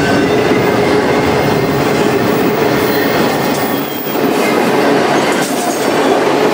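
Freight train of autorack cars rolling past close by: the steady, loud rumble and clatter of steel wheels on the rails.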